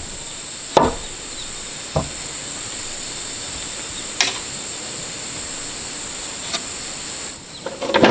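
Insects buzzing in a loud, steady high-pitched chorus that stops abruptly near the end, with a few scattered knocks, the first about a second in.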